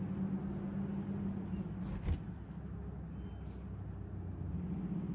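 Steady low hum, with a few light clicks and one sharp knock about two seconds in.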